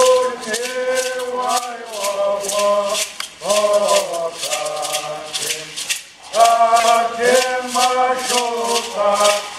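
Chanted singing by voices together in repeated phrases, over a rattle shaken in a steady beat.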